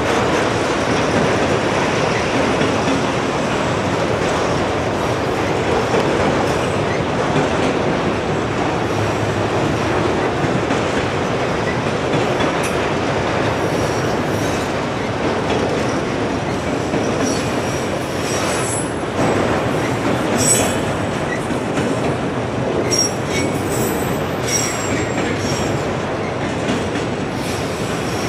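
Freight train of autorack cars rolling past: a steady rumble and clatter of steel wheels on rail. Brief high wheel squeals come now and then, more of them in the second half.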